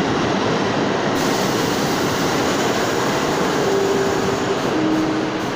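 Steady, loud subway train noise in an underground station. About four seconds in, an R62-series subway car's door chime sounds two notes, the second lower, warning that the doors are about to close.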